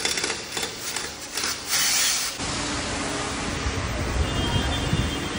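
Pneumatic impact wrench working a car's wheel nuts in several short bursts of hissing air. After a couple of seconds it gives way to a steady low workshop rumble.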